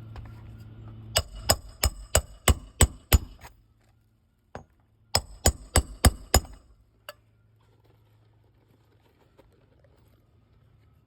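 Hammer blows on a metal roof snake, a nailing bar set under the shingle tab, driving roofing nails into a replacement shingle. There is a quick run of seven sharp, ringing metallic strikes about three a second, then after a short pause a second run of five.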